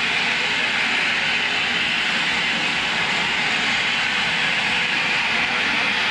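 Stage CO2 jets blasting tall white plumes with a loud, steady hiss.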